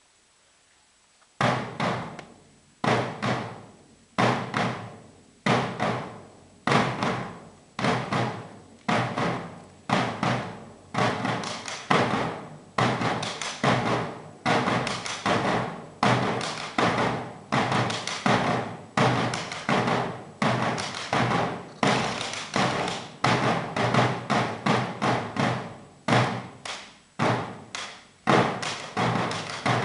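Two drums struck hard with sticks. The first stroke comes about a second and a half in. The single strokes fall about a second and a half apart, then speed up into quicker, denser beats, each ringing out in the open theatre, with a brief pause near the end.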